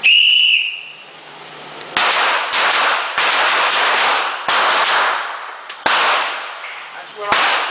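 A short whistle blast, then six handgun shots at an uneven pace over the next five seconds, each with a long echoing tail.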